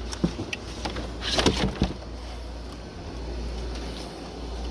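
Animatronic prop parts being handled during unpacking: a few light knocks, then a short scraping rustle about a second and a half in.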